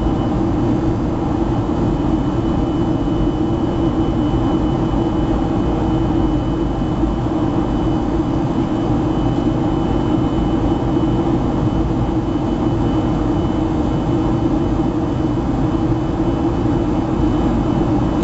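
Airliner cabin noise in flight: the wing-mounted jet engine running steadily at a constant level, with a thin steady high whine above the low drone.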